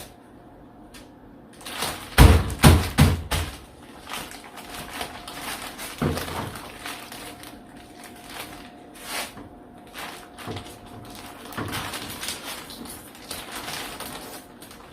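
Insulation material being handled and pressed into place by hand: a few heavy thumps about two to three seconds in and another near six seconds, with scattered crinkling and tapping between.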